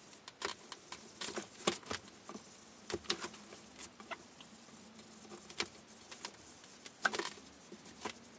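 Faint, irregular clicks and light rubbing of a gloved hand working an oil finish into a wooden table top with a cloth pad.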